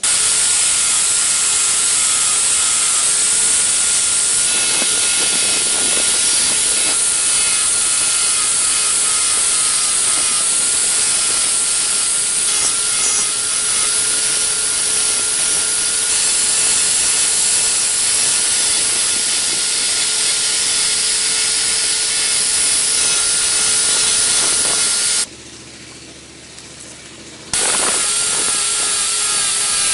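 Electric power tool running steadily with a rasping, abrasive noise over a constant motor whine, as in grinding or sanding work on the hammer. It breaks off abruptly for about two seconds near the end, then carries on.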